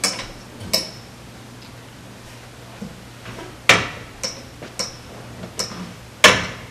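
Steel tube frame of a folding guest bed clicking and clanking as it is folded and handled: about seven sharp knocks, some with a short ring, the loudest about halfway through and near the end.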